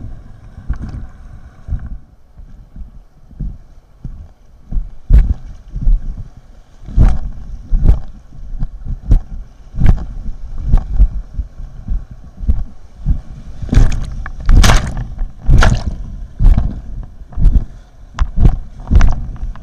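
An inflatable whitewater kayak on a river rapid, heard from a helmet camera: rushing water with a run of loud thumps and splashes about once a second, starting a few seconds in.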